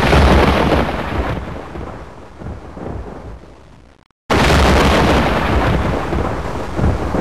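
An earthquake rumble sound effect: a loud, deep roar that starts abruptly and fades over about four seconds. It then cuts out to silence for a moment and starts abruptly again, loud.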